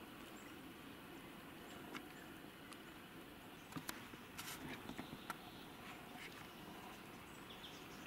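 Faint rustling and scattered sharp clicks, bunched together around the middle, from a person moving quietly through bush with a camera and tripod held overhead: handling knocks and steps on leaf litter and twigs.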